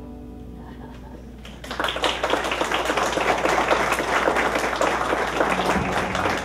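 The last guitar note of a slow song fades out, then a roomful of people starts applauding about two seconds in.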